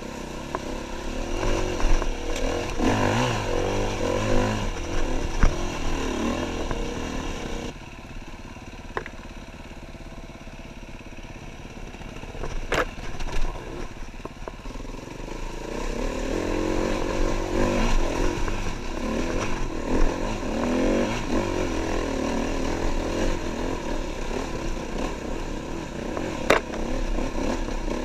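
KTM EXC-F 350 single-cylinder four-stroke enduro bike engine revving up and down under riding load, dropping to low revs for several seconds in the middle. A few sharp knocks cut through it.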